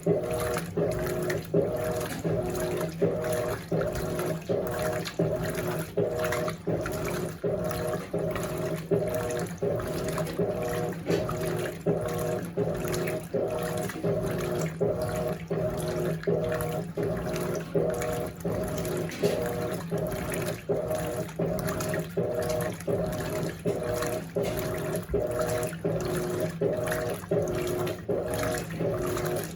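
Electrolux LAC16 top-loading washing machine agitating a high-water-level load, driven by a 1/4 hp WEG motor. The motor hum pulses in a steady back-and-forth rhythm as the agitator reverses, with water sloshing in the tub.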